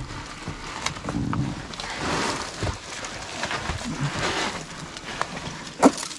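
A person breathing hard and grunting while clambering through a rock crevice, with scattered clicks and scrapes; a sharp knock near the end is the loudest sound.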